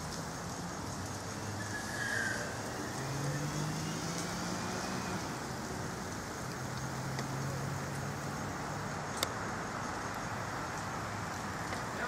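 Road traffic going by, with the low hum of passing car engines. The siren is silent here. There is one sharp click about nine seconds in.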